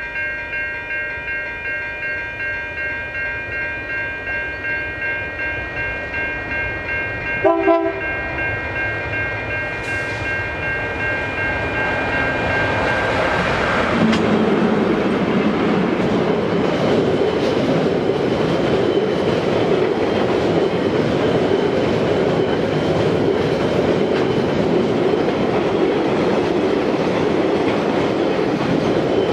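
Container freight train hauled by two EF-class electric locomotives approaching and passing: steady high tones as the locomotives near, with a short horn blast about seven seconds in. From about halfway the container wagons roll by, with wheel clatter over the rails.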